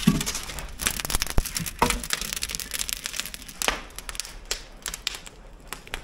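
Wood fire crackling in a brick fireplace, with irregular sharp pops and snaps from the burning logs.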